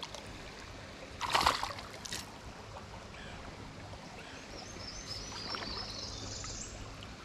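Creek water running steadily, with a brief splash about a second in and a smaller one just after.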